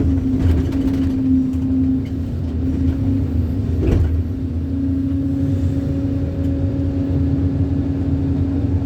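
Backhoe's diesel engine running steadily under work, with a single sharp knock about four seconds in.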